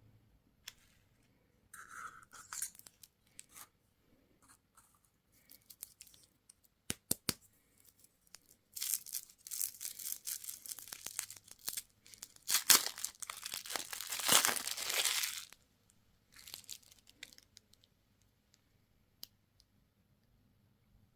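Candy wrapper being torn and crinkled open: scattered crinkles and a couple of sharp clicks, then a long stretch of tearing in the middle, loudest near its end.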